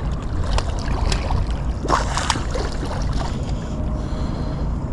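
Steady rumble of wind and water around a small fishing boat, with a few light knocks and a short rush of noise about two seconds in.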